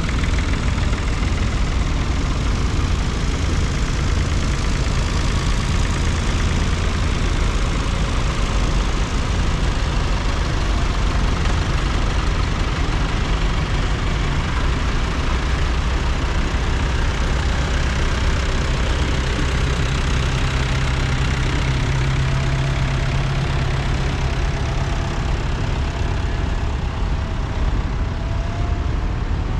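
Farm tractors' diesel engines running steadily as several tractors pull away and drive past one after another. One engine note grows louder around twenty seconds in.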